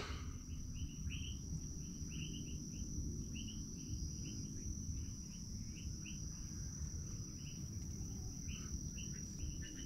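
Tropical forest insects: a steady high-pitched insect drone with a run of short chirps repeating two or three times a second, over a faint low rumble.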